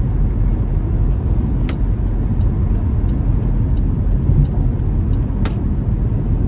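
Steady low road and engine rumble inside a moving car's cabin. Two sharp clicks, about two seconds in and again near the end, with faint light ticking between them.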